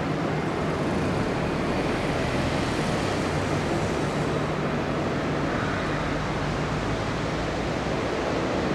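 Steady jet roar of a Boeing 747-8F freighter's four GEnx engines during take-off, a broad rumble whose highest hiss dulls about halfway through.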